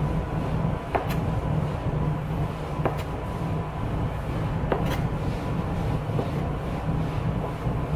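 Bench scraper chopping a rope of gnocchi dough on a stainless-steel worktop, its edge giving a sharp tap on the steel every second or two. Under it runs a steady low hum.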